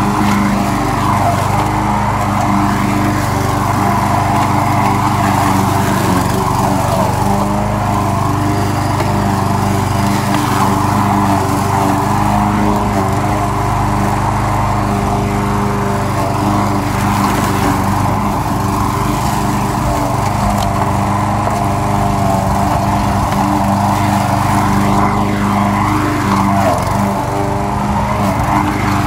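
Troy-Bilt push lawn mower's small engine running at a steady speed while the mower cuts grass, heard up close from the handle.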